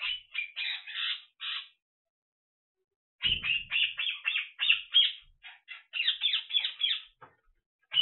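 African grey parrot giving short clipped calls in quick succession: a run of about five, a pause of about a second and a half, then a longer, faster run of about fifteen.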